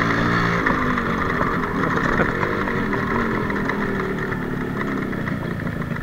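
Yamaha RXZ's two-stroke single-cylinder engine running while the motorcycle is ridden. The engine note holds steady, then changes just over half a second in and wavers in pitch after that. Wind rumble on the microphone runs underneath.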